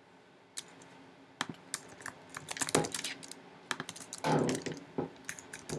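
Computer keyboard keys clicking in short, irregular runs of typing, starting about half a second in.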